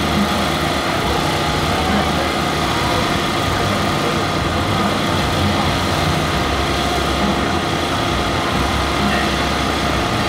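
A long loaded CSX coal train of open hopper cars rolling past at a steady speed, with a continuous rumble of steel wheels on rail.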